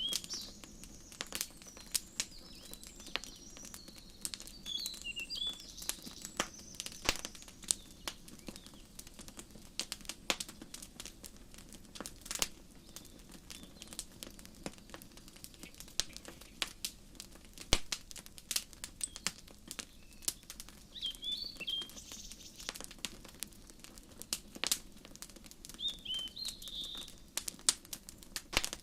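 Wood fire crackling, with frequent sharp pops over a soft steady hiss. Birds sing in short chirping phrases at the start, again about two-thirds of the way through, and near the end.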